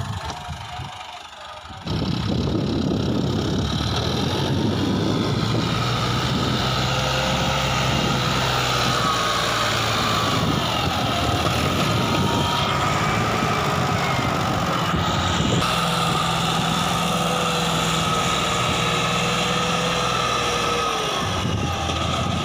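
Massey Ferguson 260 tractor's three-cylinder diesel engine running hard under load as it strains to pull a loaded trolley through loose soil. The first couple of seconds are quieter; then the engine runs loud and steady, its pitch wavering a little.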